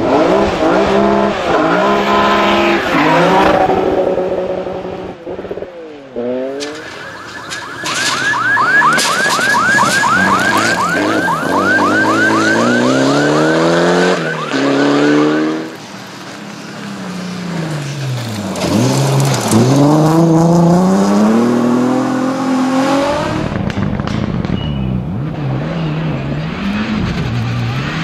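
Rally cars at full throttle passing one after another, their engines revving up and dropping through gear changes, with the pitch falling as each one goes by. For several seconds in the middle a rapid high chirping runs over the engine sound.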